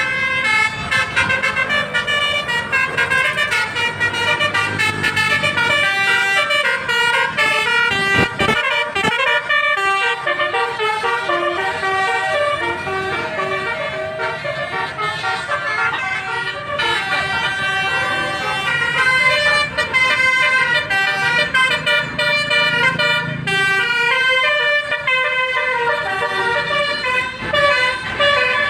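Musical air horns on Indonesian buses (telolet / basuri horns) tooting melodies, one stepped note after another without pause.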